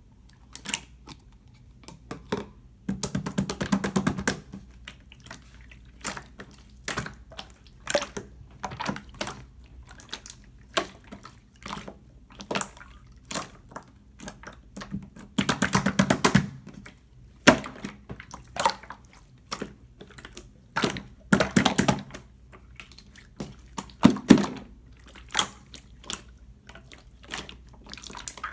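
Clear slime being squeezed and worked by hand, giving sharp sticky clicks and pops with several longer crackling runs of popping air bubbles.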